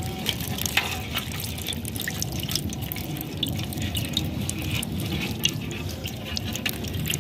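Water dripping and splashing in small, irregular ticks over a low steady rumble.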